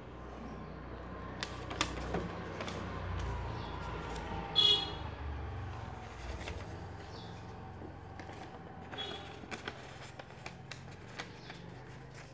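A sheet of paper being handled and creased into folds: scattered crackles and taps over a low background rumble. About four and a half seconds in, a short high-pitched toot sounds, the loudest thing here.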